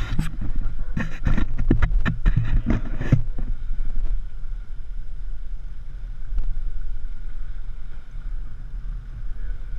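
Twin 115 hp outboard motors running with a steady low rumble and a faint whine, mixed with wind on the microphone. For the first three seconds a dense, irregular crackling clatter sits over the engine sound, then stops.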